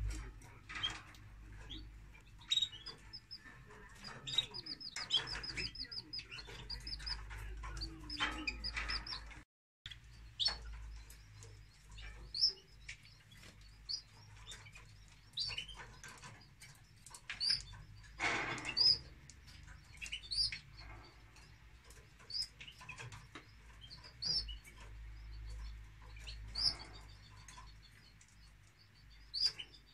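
Domestic canary nestlings begging with high, short cheeps while the yellow male canary feeds them in the nest, with a quick run of chirps early and a brief rustle a little past halfway.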